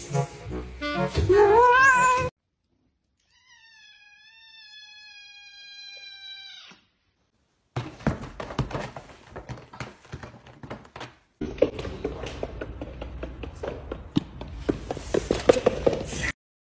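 A cat meowing with a wavering pitch in the first two seconds. About eight seconds in come irregular thumps and scuffling as two cats tussle in a felt cat bed, followed by several more seconds of rustling with sharp knocks.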